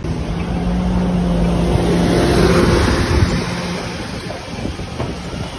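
City bus engine running as the bus drives past close by, with a steady drone that grows louder to a peak about halfway through, then fades as it moves away.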